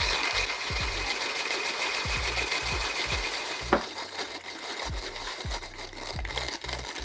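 Timemore Chestnut C2 hand coffee grinder being cranked, its conical steel burrs crunching whole coffee beans at a coarse French-press setting in a fast, steady crackle, with one sharper click nearly four seconds in.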